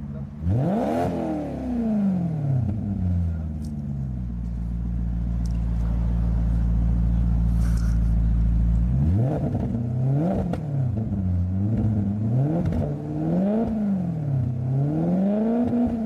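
Maserati GranTurismo's 4.7-litre V8 revved while standing still, heard from its rear tailpipes: one rev rising and falling near the start, a steady hold for about five seconds, then several quick blips of the throttle rising and falling in turn.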